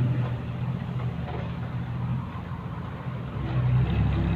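Dump truck's diesel engine running at low revs as the truck crawls slowly through a deep hole, steady at first and louder near the end as it takes more load.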